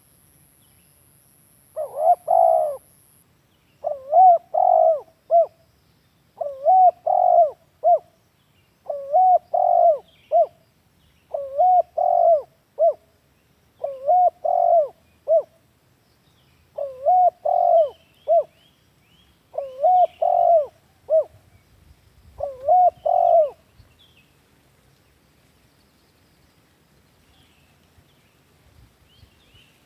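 Spotted dove (tekukur) cooing a lure call: nine repeated multi-note coo phrases, about one every two and a half seconds, then a silent stretch of several seconds near the end.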